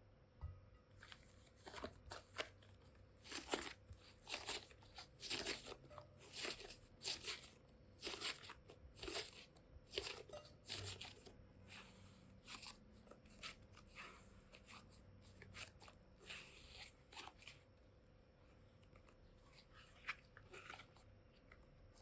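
Close-up handling noises of craft material: a run of short crunches and crackles that thin out about three-quarters of the way through, over a faint steady hum.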